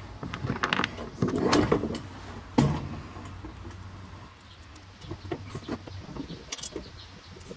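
Bolts and mounting hardware being handled against a powder-coated metal molle panel: scattered small metallic clicks and knocks, the sharpest a single click about two and a half seconds in.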